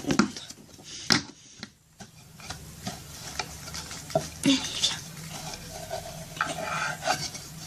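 Small plastic toy horse figurines and stable pieces being handled and moved about, with scattered light clicks and scrapes of plastic on plastic.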